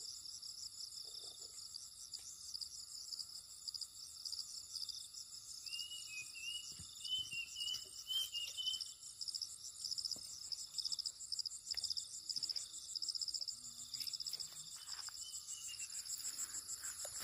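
Insect chorus of crickets trilling steadily in a high, fast pulsing buzz. About six seconds in, a bird adds a short run of warbling chirps for a few seconds.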